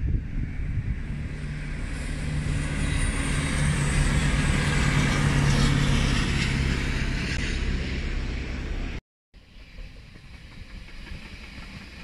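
Diesel engine of a yellow Network Rail track machine (a tamper) passing, a steady low engine drone with rail noise that swells to its loudest about halfway and then eases. The sound cuts off abruptly near the end, and a quieter rumble of a passing passenger train follows.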